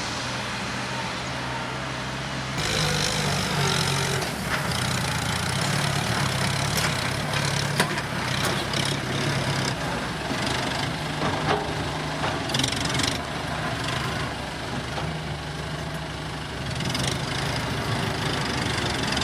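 Kubota M7040 tractor's diesel engine running steadily. About two and a half seconds in it turns abruptly louder, and scattered clanks and rattles ride over the engine note.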